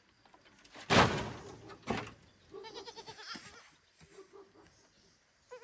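Two sudden bumps, the first loud, about a second in and a second later; then a baby goat bleats once with a wavering, quivering call, followed by a fainter short bleat.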